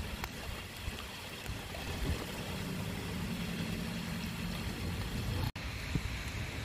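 Distant thunder rumbling low under a steady hiss of storm noise, breaking off for an instant about five and a half seconds in.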